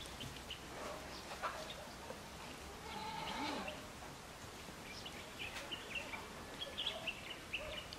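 Faint outdoor ambience with small birds chirping in short, high calls, most of them in the second half. A brief pitched animal call comes about three seconds in.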